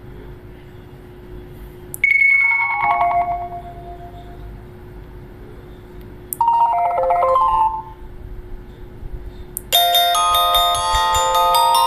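HTC One Max smartphone playing its built-in alert tones through its loudspeaker, one after another: a short falling chime about two seconds in, another brief chime a few seconds later, then a longer, fuller multi-note ringtone melody starting near the end, over a faint steady hum.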